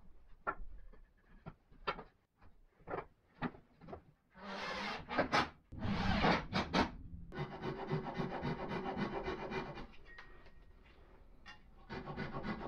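Wooden slats knocking and clattering as they are set into a walnut divider frame, then a short, loud run of a cordless drill, then the steady rasp of a flush-cut saw trimming dowel ends flush with the frame's side, fading a little in the middle and coming back strongly near the end.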